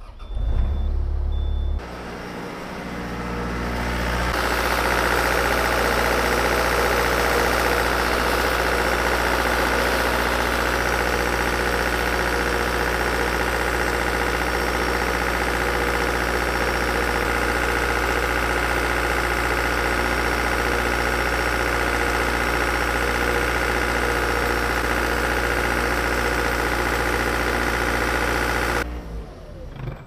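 Cat skid steer's diesel engine starting: the starter cranks for a couple of seconds, then the engine catches and runs up to speed. It holds a steady run while a carbon pile tester puts a heavy load on the battery, driving the alternator to full output, then cuts off sharply near the end.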